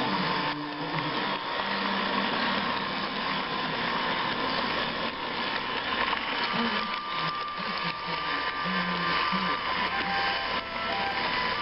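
Model train's small electric motor whirring steadily as it runs along the track, with a constant rattling noise.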